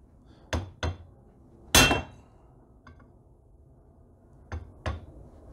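Hammer driving a steel punch against a seized bolt: two light taps, then a hard blow that rings metallically, and the pattern repeats with two more taps and another hard ringing blow at the end. The ring sounds tight, the sign that the bolt is not moving.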